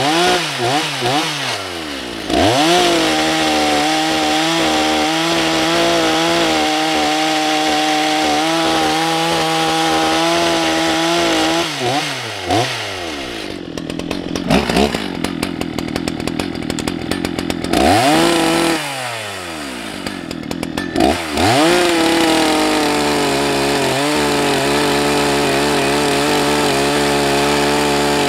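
Husqvarna 181 SE two-stroke chainsaw cutting ash logs, held at high revs in the cut for about ten seconds. Midway it drops to a ticking idle for a few seconds, is blipped up and down, then runs steadily at high revs again for the last several seconds.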